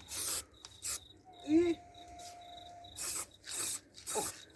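Aerosol spray-paint can spraying matte black paint in about five short hissing bursts, coat after coat. A faint high chirring runs underneath.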